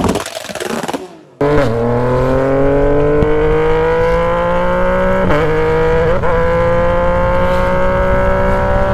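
Straight-piped Yamaha Tracer 900 inline-three accelerating hard under load, its exhaust note climbing steadily in pitch after a brief lull about a second in, with two short hitches in the note midway.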